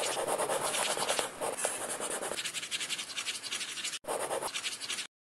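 Rapid, scratchy scribbling on paper, a drawing sound effect. It has a momentary break about four seconds in and cuts off suddenly just before the end.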